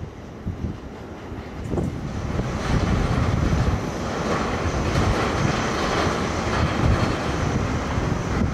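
Boeing 787-10 jet engine noise that swells about two seconds in and then runs steadily, with gusty wind rumble on the microphone.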